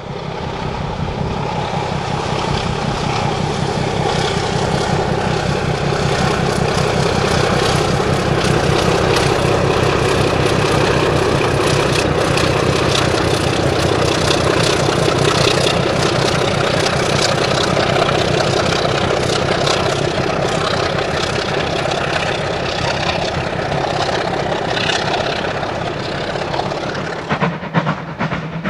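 A Class 25 diesel locomotive's engine working as it hauls a train of coaches past, with the wheels clattering over the rails; the sound swells to its loudest midway and eases off later. Near the end a rapid pulsing takes over as a steam locomotive approaches.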